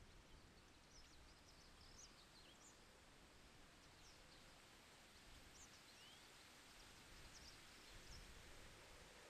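Near silence: faint outdoor ambience with scattered brief, high-pitched chirps of distant birds.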